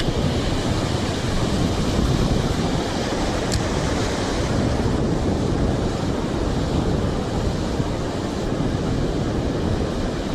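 Ocean surf breaking with wind buffeting the microphone: a steady rushing noise, heaviest in the low end.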